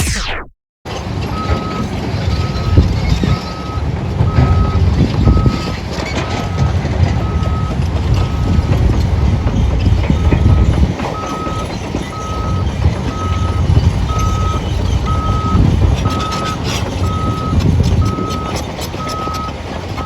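Dump truck reversing, its backup alarm beeping steadily a little faster than once a second over the low rumble of its diesel engine, which swells and eases.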